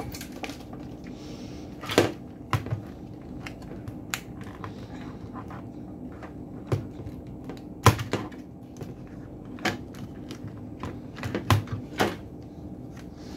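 Scattered sharp clicks and knocks of an inverter drive's circuit board and black plastic housing being handled and set down on a workbench, about eight in all at irregular intervals. A steady low hum runs underneath.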